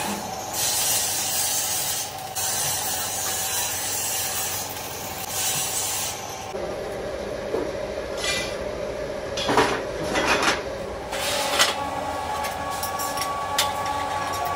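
Arc welding on a steel frame, a steady crackling hiss for about six seconds. Then steel parts are knocked and handled, with several sharp metal clanks, some of them ringing, in the second half.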